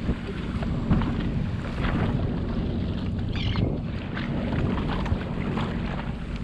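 Sea-Doo Fish Pro personal watercraft engine idling with a steady low hum, under wind buffeting the microphone. A short high chirp about three and a half seconds in.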